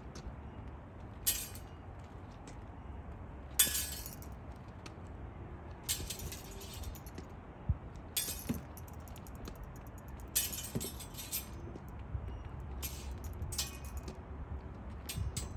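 Steel rapier blades clinking against each other in a bout: about eight short ringing contacts a second or two apart, a few drawn out into a longer scraping slide of blade along blade.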